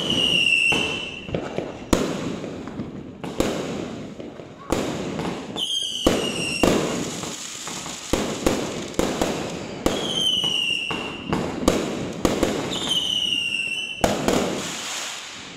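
Aerial fireworks going off: a run of sharp bangs, each trailing into crackle. A short falling whistle cuts through four times.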